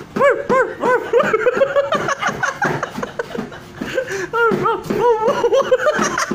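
People laughing in a run of short, high, rising-and-falling laugh bursts.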